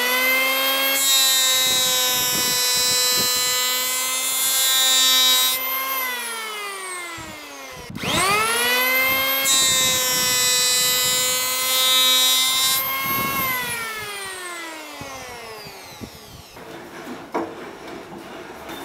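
Electric hand planer spinning up with a rising whine, then shaving the rounded edge off a 2x4 with a harsh cutting hiss for about five seconds before the motor winds down. A second pass follows the same way. Near the end, a few light knocks of wood being handled.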